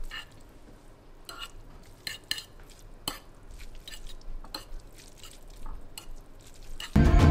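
Metal fork stirring saucy instant noodles in a ceramic bowl, with scattered clinks and scrapes against the bowl. A loud music track starts just before the end.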